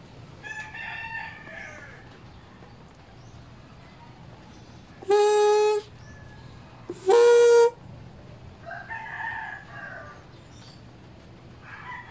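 Two short, loud buzzing honks, about 5 and 7 seconds in, as air is blown by mouth through a Yamaha RS100's reed valve block, its reed petals vibrating at one steady pitch: a check of whether the refitted petals now seal properly. A rooster crows more faintly near the start and again about 9 seconds in.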